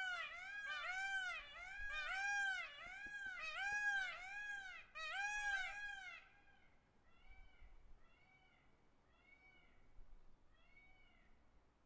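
Peacock (Indian peafowl) calling in a rapid series of about ten rising-and-falling calls, roughly two a second. After about six seconds the calls go on more quietly and a little slower.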